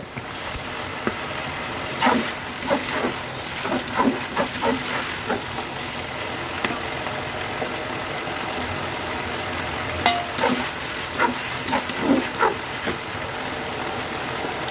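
Chicken pieces cooking in their sauce in a wok, a steady sizzling bubble, with scattered clinks and taps about two to five seconds in and again about ten to thirteen seconds in.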